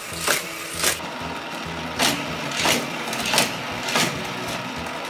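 Motorized booster of a Hot Wheels Criss Cross Crash track running with a steady hum, with a sharp whirring clack about once or twice a second as toy cars are shot through it.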